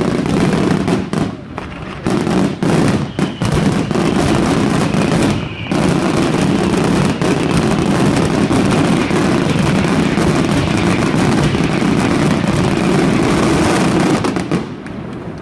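Fireworks going off in a dense barrage of rapid bangs and crackling, with a brief pause about five seconds in, then near-continuous until it dies away shortly before the end.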